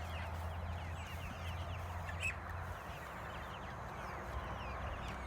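A flock of young pastured meat chickens peeping and chirping, many short high cheeps overlapping without a break.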